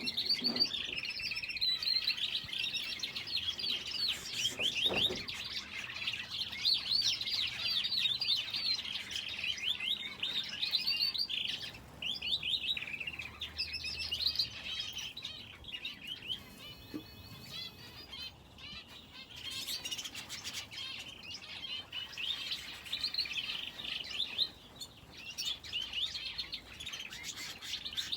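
Aviary finches and a canary chirping and calling nonstop, many quick high calls overlapping, with a sparser lull about two-thirds of the way through.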